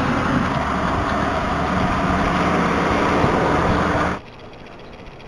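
A vehicle engine running nearby, picked up by an outdoor security camera's built-in microphone as a steady rumble with street noise. About four seconds in it cuts off abruptly to a much quieter outdoor background.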